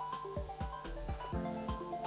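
Music: held pitched notes stepping from one pitch to the next over a steady beat of low thumps and light clicks.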